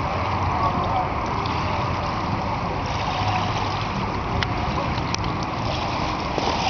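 Steady rushing noise of open river water, with a few faint splashes as a man wades through waist-deep water.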